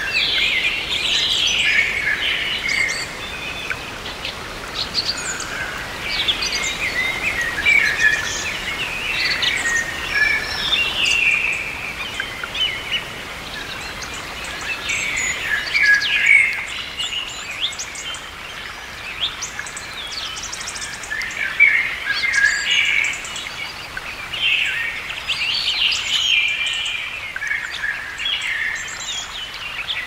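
Eurasian blackbird singing: warbling phrases every few seconds, each ending in higher twittering, over a steady faint hiss.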